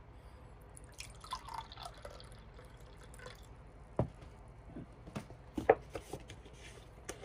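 A dark cold drink poured from a bottle into a glass, a short trickle and splash about a second in; then a string of sharp clicks and knocks as the containers are handled, the loudest a little after the middle.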